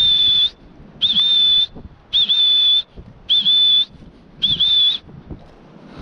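Dog whistle blown in five short, shrill blasts about a second apart. Each blast is one steady high tone with a brief dip at its start. It is a recall signal to a hunting dog.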